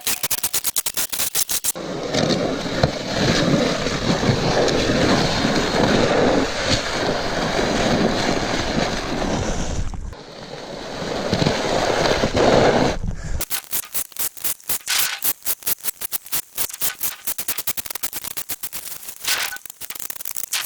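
Snow shovel scraping over pavement, sped up. A rapid stuttering clatter of clicks at the start gives way to a continuous rough scraping noise. The noise dips briefly around the middle, then turns back to the fast clicking for the last seven seconds or so.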